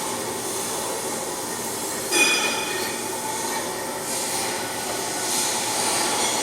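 Flux-cored arc welding: a steady crackling hiss from the arc. About two seconds in there is a brief, louder screech with a high ringing tone.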